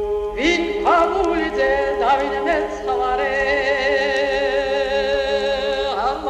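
Song with a solo singing voice that comes in about half a second in with sliding pitches, then holds one long note with vibrato, over a steady sustained accompaniment.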